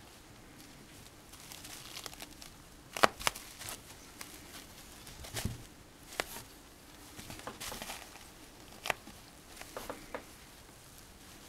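Kitten shifting about on a plastic-backed puppy pad: scattered crinkles and soft taps, the loudest a sharp pair about three seconds in.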